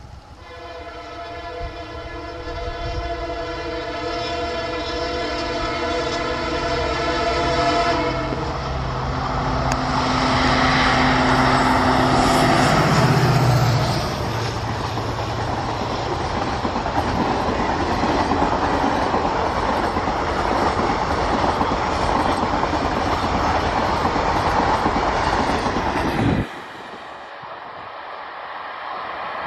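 EMD WDP-4 diesel locomotive sounding a long multi-tone horn for about eight seconds as it approaches, then passing close with a low engine drone, followed by a loud rush of wheels and coaches of the express train for about twelve seconds. The sound drops off suddenly near the end, leaving a quieter rumble of the train moving away.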